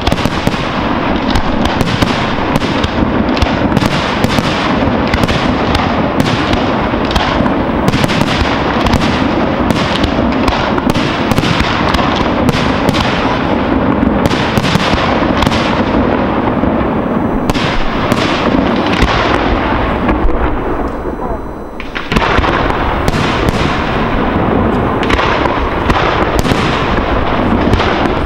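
Fireworks display at a fast pace: aerial shells and salutes bursting one after another in a dense, continuous barrage of bangs and crackle. There is a brief lull about three-quarters of the way through, then the bangs start again abruptly.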